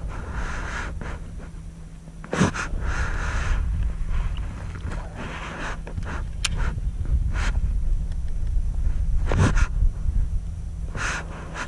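Breathing-like noise swells close to the microphone, each about a second long, over a steady low hum and wind rumble, with a few sharp clicks.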